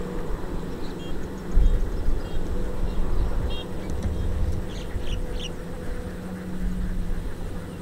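Diesel farm tractors running and driving across a field while hauling trailers loaded with rice sacks: a steady engine drone with a low rumble that swells about one and a half seconds in. A few short high chirps sound about four to five seconds in.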